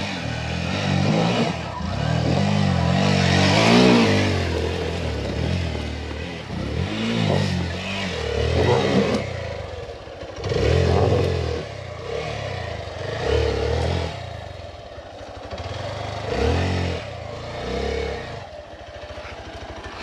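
Hero Xpulse 200 single-cylinder motorcycle engine revved in repeated throttle bursts, its pitch rising and falling every second or two, while riding a rough dirt trail.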